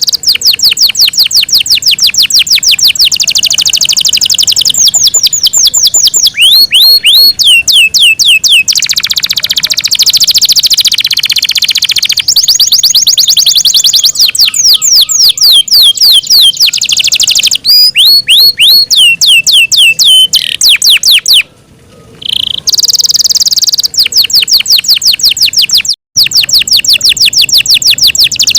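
Yorkshire canary singing a long, loud song of fast trills and rapidly repeated whistled notes, with a short pause about three-quarters of the way through.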